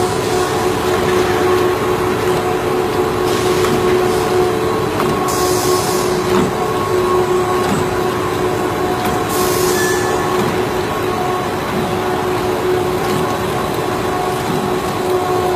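Industrial machine, likely the double-head punching machine, running with a steady hum made of several constant tones, with short bursts of high hiss every few seconds.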